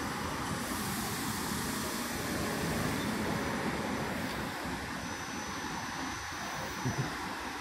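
SEPTA Silverliner IV electric multiple-unit commuter train rolling past on the far track, a steady rumble of wheels on rail, with two brief thumps near the end.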